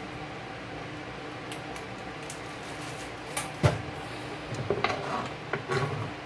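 Knocks and taps of a kitchen knife and an onion on a plastic cutting board as slicing begins, with one sharp knock about three and a half seconds in as the loudest sound, then a short run of lighter taps.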